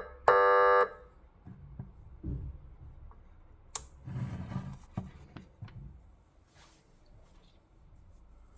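A short horn-tone blast from a CJB-200 200-watt electronic police siren, the 'quack' tone, about half a second long and steady in pitch. A few faint clicks and knocks follow, the loudest a sharp click a little before the middle.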